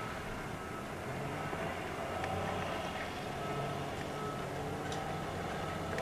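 A stuck car's engine running, its pitch rising and falling a little, as the car sits stuck in deep snow and is pushed.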